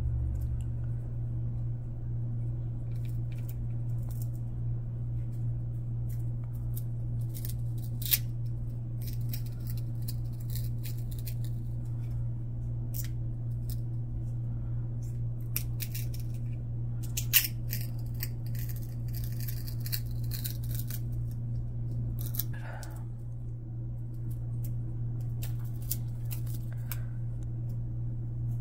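Trading cards handled in the hands: stiff cardboard cards slid off a small stack one by one, with light scrapes and occasional sharp flicks, over a steady low hum.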